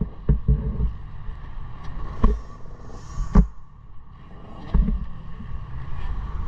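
Motocross bike engine idling at a standstill, with a steady low rumble. Four sharp knocks and clunks from the bike being handled, the loudest about three and a half seconds in.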